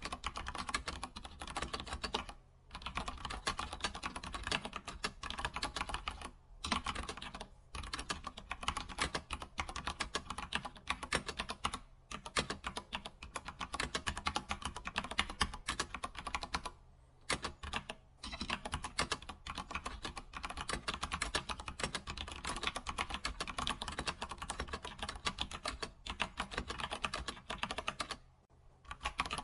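Computer keyboard typing: a fast, continuous run of keystrokes, broken by a few brief pauses of under a second.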